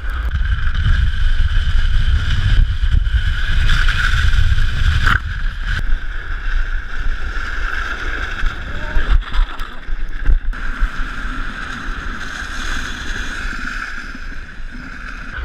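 Toboggan sliding fast over icy snow: a steady rushing, scraping hiss, with wind buffeting the microphone and a heavy low rumble for the first few seconds.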